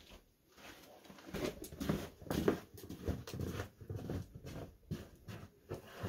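Footsteps crunching in snow, a couple of irregular steps a second, loudest in the middle and fading toward the end as the walker moves off.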